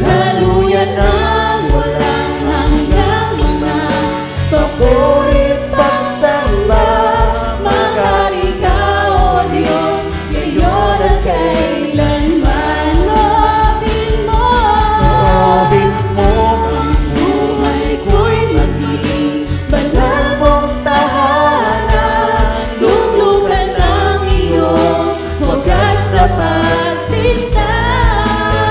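Live worship band playing a praise song: several voices singing together into microphones over electronic drums, electric guitars and keyboard.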